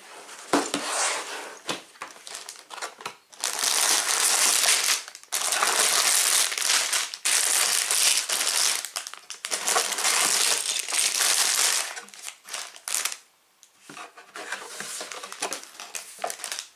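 Plastic bags of Lego pieces crinkling and rustling as they are handled and pulled out of a cardboard box. Light scattered rustles and clicks as the box is opened, then long stretches of loud crinkling, tapering to softer rustling near the end.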